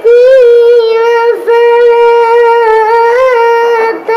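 A ten-year-old boy's voice chanting Quran recitation in a melodic style, holding long, steady notes with small melodic turns, with short breaks about a second in and near the end.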